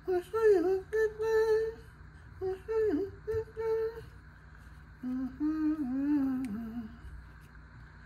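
A man humming a tune to himself in three short phrases with pauses between them; the last phrase sits lower in pitch.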